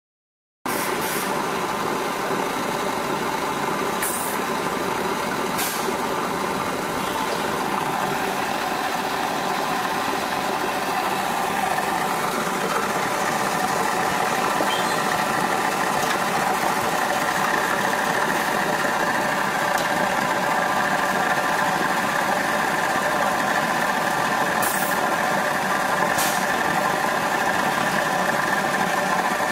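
Thermoforming packaging machine running steadily, a dense mechanical hum, with a few short high hisses every few seconds.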